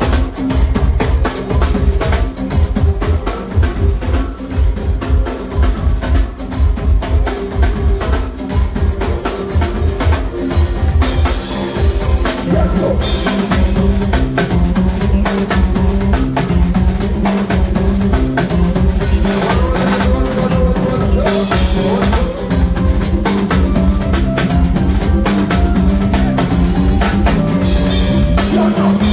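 Live band playing an instrumental during a sound check: drum kit with a heavy bass drum, snare and rimshots over a bass line, with more instruments filling in from about halfway through.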